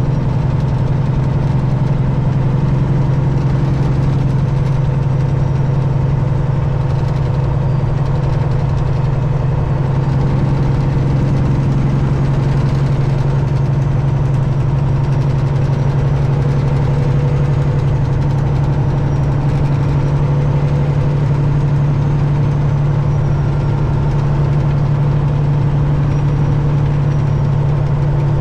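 Detroit Diesel engine of a Peterbilt 379 truck running at a steady speed, a constant low drone that holds unchanged throughout.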